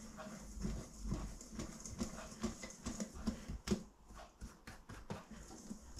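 Dry flour and salt being stirred in a stainless steel mixing bowl: faint, irregular taps and scrapes of the utensil against the bowl.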